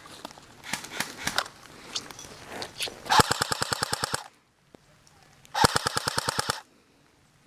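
Airsoft rifle fire: a few scattered single shots, then two loud full-auto bursts of about a second each, the second starting about two and a half seconds after the first, at roughly a dozen rounds a second.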